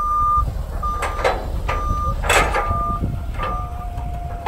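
Forklift reversing alarm beeping evenly, five beeps a little under a second apart, over a low engine rumble. Sharp metal clanks and rattles from the loaded cargo dolly and container come in between, the loudest about halfway through.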